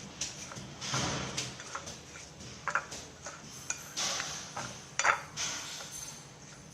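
Kitchen work sounds: light clinks and knocks of utensils and cookware, with a few short bursts of hiss.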